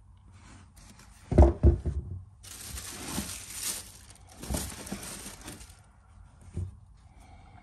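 A few knocks as a sneaker is set down on a wooden bench about a second and a half in, then the shoebox's black wrapping crinkling and rustling as it is pulled out by hand, in two long stretches.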